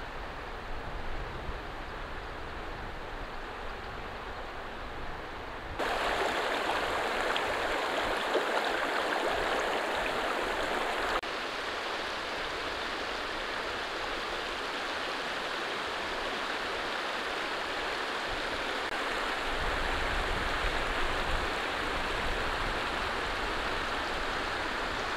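Shallow mountain stream rushing over rocks and stones, a steady flow of water. It grows louder about six seconds in.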